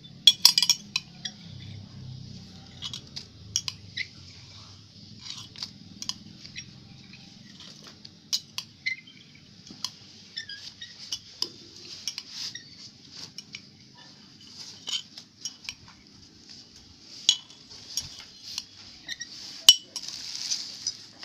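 A metal spoon clinking and scraping against a glass in irregular light taps, picking seeds out of freshly squeezed lime juice, over a steady background hiss.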